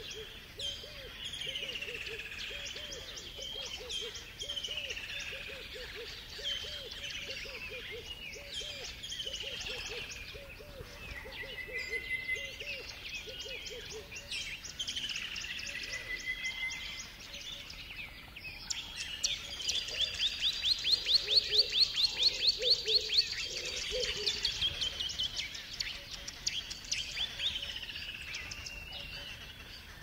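Dawn bird chorus in African bush: several birds calling over one another, with whistled calls that fall in pitch and repeat every couple of seconds. A low series of quick repeated hoots runs through the first half, and a loud, fast high trill comes about two-thirds of the way in.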